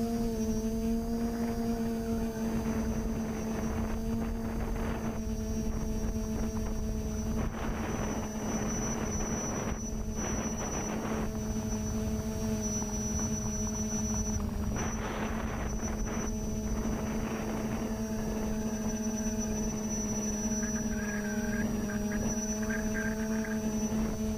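TBS Discovery quadcopter's electric motors and propellers humming at a steady pitch with a thin high whine above it, the pitch dipping slightly a couple of times as the throttle eases. Several bursts of rushing wind noise come and go across the microphone.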